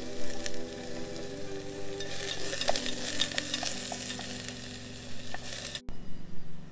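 Food sizzling in hot oil in a steel camping pot on a gas stove, stirred with a spoon; the sizzle grows louder about two seconds in and cuts off abruptly near the end.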